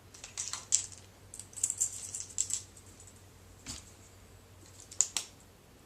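Small metal clicks and rattles from the recoil spring being fed into the slide of a Para Expert 1911 pistol during reassembly. A quick run of clicks over the first couple of seconds, then a single click, then a sharper, louder one near the end.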